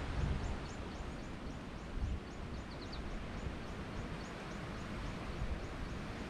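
Wind blowing over the microphone and through vegetation, with short high chirps repeating about three times a second and a brief cluster of calls about three seconds in.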